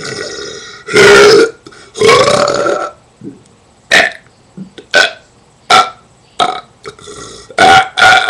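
A person burping loudly. There are two long burps about one and two seconds in, then a run of short, sharp ones, and another long burp starts right at the end.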